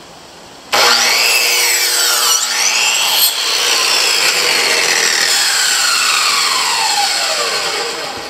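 Electric power saw starting abruptly and cutting wood, with a whining blade. Over the last few seconds its pitch falls steadily as the blade winds down.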